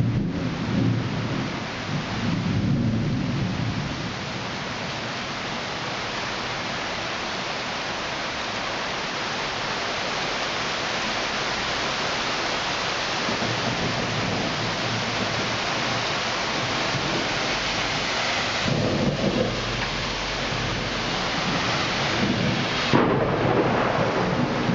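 Heavy thunderstorm rain pouring steadily, with low rolling thunder rumbling near the start and again in the last six seconds.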